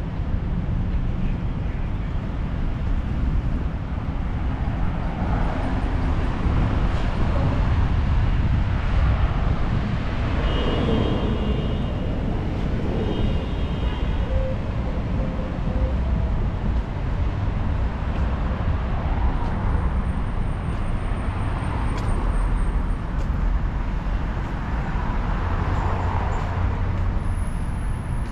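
Road traffic: cars passing on a multi-lane street, tyre and engine noise swelling and fading as each goes by over a steady low rumble. Two short runs of high beeps sound about ten and thirteen seconds in.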